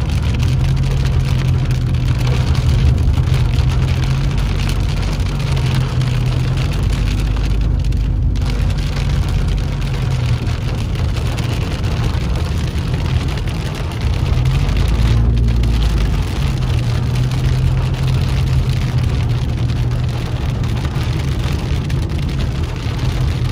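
Rain hitting a moving car's windshield, heard from inside the cabin, over the car's steady low engine hum and tyre noise on a wet road.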